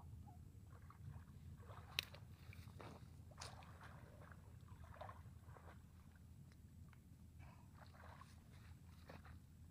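Faint water sloshing and small splashes of a person wading through swamp water among floating vegetation. There are scattered light clicks, a sharper one about two seconds in, over a low steady rumble.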